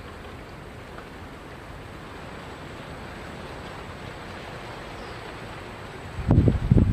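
Steady outdoor hiss of wind and river ambience on a riverbank, then near the end a burst of loud, irregular low thumps and rumbling.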